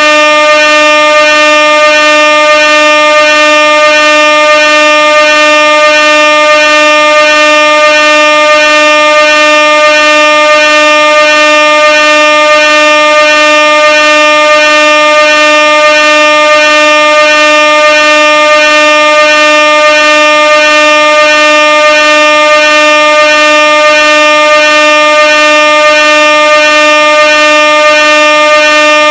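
Air horn sounding one loud, unbroken blast at a steady pitch.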